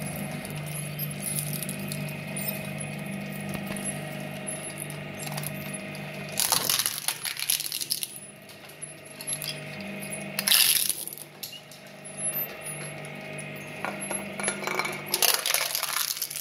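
Twin-shaft industrial shredder running with a steady motor hum while its toothed blades crunch and crack hard plastic. Loud bursts of crunching come about six seconds in, again near eleven seconds, and near the end.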